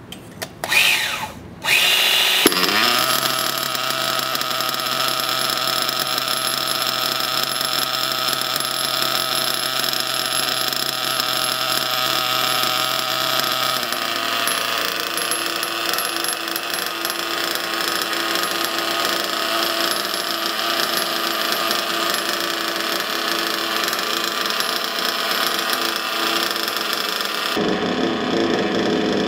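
Reds XR21 two-stroke nitro glow engine in a 1/8 buggy, started after a brief whir about two seconds in, then idling steadily with its tone shifting slightly about halfway through. It is running its first tank of break-in on richened needle settings.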